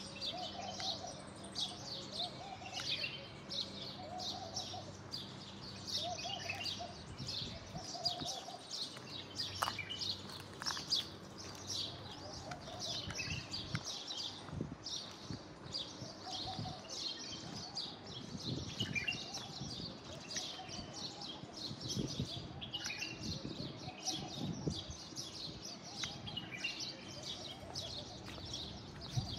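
A flock of small birds chirping busily and without pause. A lower call repeats about once a second during the first few seconds, and a few low thumps come in the second half.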